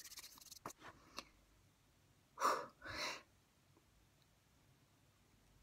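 Hands rubbing together with a dry rasp for about half a second, a couple of small clicks, then two short, loud breaths in quick succession a little over two seconds in.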